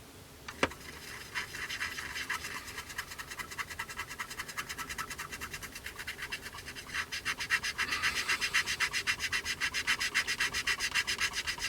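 Fast back-and-forth rubbing on a plastic model kit's surface with IPA, scrubbing excess Mr. Surfacer filler off the plastic around a filled seam. It runs as an even scratchy scrubbing of several strokes a second and grows louder about seven seconds in.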